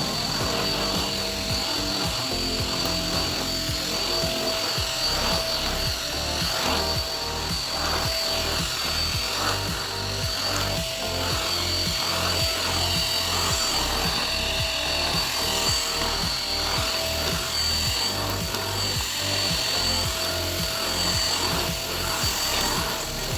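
Elgin 2-in-1 stick vacuum cleaner running with a steady whine, under background music with a steady beat.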